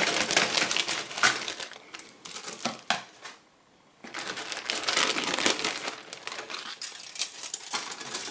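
Thin clear plastic bag crinkling and rustling as it is cut open and the grey plastic model-kit sprues inside are handled, with sharp clicks of the sprues knocking together. The rustling stops briefly about three and a half seconds in, then starts again.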